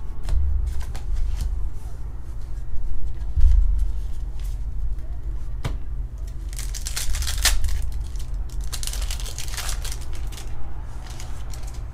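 Pokémon TCG booster pack's foil wrapper crinkling and tearing open, a dense crackling that starts about halfway through and lasts a few seconds, after several light clicks of cards being handled.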